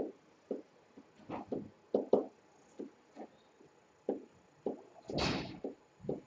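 Interactive whiteboard pen writing on the board's surface: a run of short taps and scrapes, irregular like handwriting, with a louder half-second rush of noise about five seconds in.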